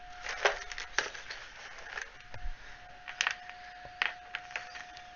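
Small cast miniature pieces being handled and set down on a cutting mat: irregular light clicks and taps.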